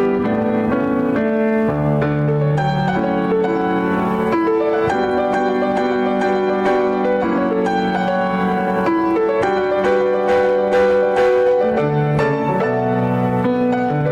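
Piano playing slow, sustained chords under a melody line.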